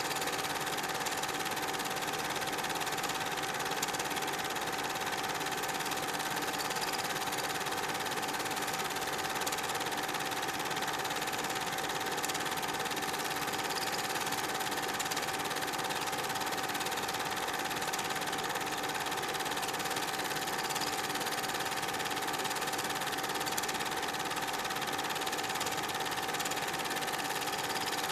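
Super 8 film projector running: a steady mechanical whirring clatter with a constant tone over it.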